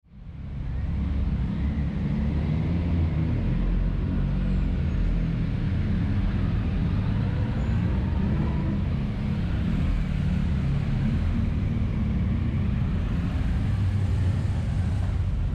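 Motorcycle on the move at a steady pace: a continuous low engine drone with road noise, fading in over the first second.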